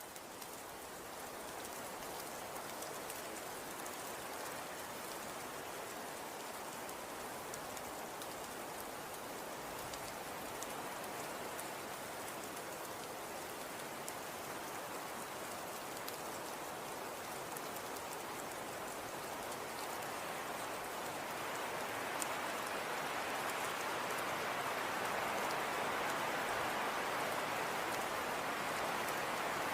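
Blizzard wind: a steady, even rushing hiss that fades in at the start and swells louder about two-thirds of the way through.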